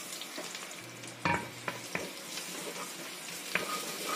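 Chopped garlic sizzling in hot cooking oil in a pot, starting as it is tipped in, then stirred with a wooden spatula that knocks against the pot a few times.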